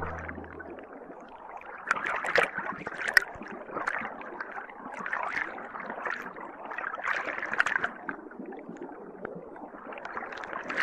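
Water sloshing and splashing in a small plastic toy pool as a toy octopus is moved about in it, in uneven surges with sharp little splashes.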